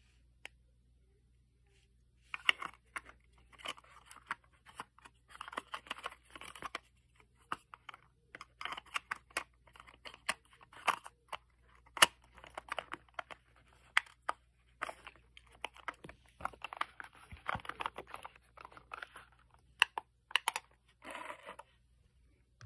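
Irregular plastic clicks, taps and short scraping rustles as hands fit the back cover over the AA batteries of a battery-powered LED work light and turn the light over. A few sharper clicks stand out, the loudest about twelve seconds in.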